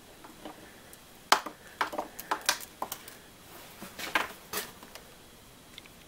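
Clicks and clatter of a power cord and its plug being handled and plugged into an outlet: a string of sharp clicks from about a second in until near the end.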